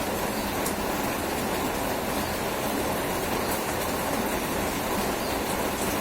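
Steady heavy rain: an even, unbroken rushing noise with a few faint ticks scattered through it.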